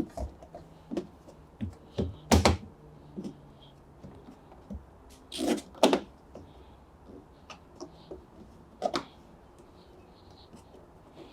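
Scattered knocks, taps and rubbing as the rubber door seal of a front-loading washing machine is pressed by hand onto the rim of the door opening, with louder knocks about two and a half, six and nine seconds in.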